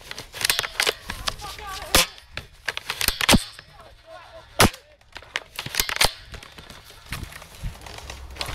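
Airsoft guns firing single shots in an exchange, sharp cracks spaced irregularly a second or so apart, with a few louder ones a couple of seconds and about four and a half seconds in.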